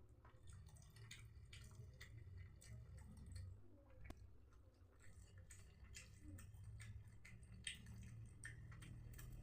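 Faint, wet chewing and mouth clicks, several a second, of someone eating chewy chicken intestines.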